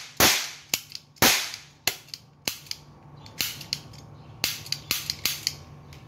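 Toy cap-gun revolver firing: two loud sharp pops about a second apart near the start, then a string of smaller, irregular cracks and clicks.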